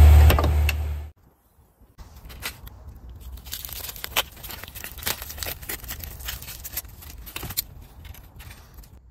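Aluminium foil being unwrapped by gloved hands: a long run of sharp, irregular crinkling and crackling. Before it, a loud car engine sound cuts off suddenly about a second in.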